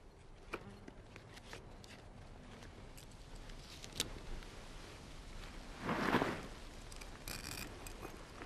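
Quiet rustling and handling of cloth, with scattered small clicks and a short, louder rustle about six seconds in, as a strip of cloth is readied for a makeshift head bandage.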